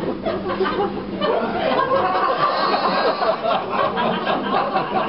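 Audience laughing and chattering, many voices overlapping with no single speaker standing out.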